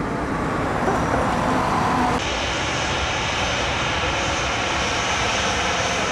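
Jet noise from a twin-engine business jet climbing away, then an abrupt cut, about two seconds in, to a Boeing 737's CFM56 turbofans at taxi power: a steady rumble with a high, even whine on top.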